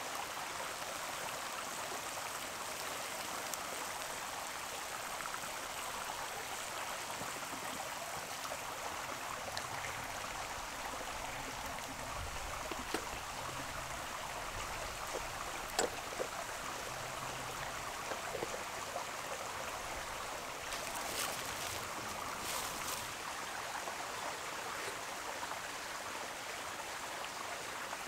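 Steady sound of running water at an even level, with a few faint clicks scattered through it.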